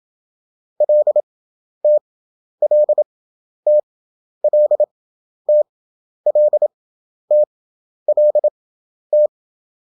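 Morse code practice tone: a single steady beep keyed into dots and dashes at 27 words per minute with wide Farnsworth gaps between characters (11 wpm effective). One short code group is sent five times over, each time a quick cluster of elements followed by a single short element.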